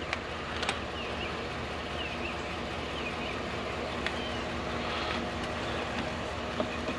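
Vehicle engine running steadily with an even hum, with a few short clicks and faint high chirps.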